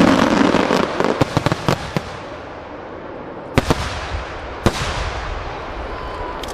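Starmine fireworks display: a dense run of crackling shell bursts for the first two seconds, then two sharp, loud bangs about a second apart near the middle, the sound then trailing off.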